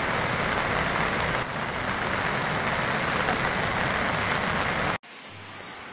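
Steady rushing noise of muddy floodwater pouring over and around a bridge, mixed with rain. It cuts off abruptly near the end, leaving a faint low hum.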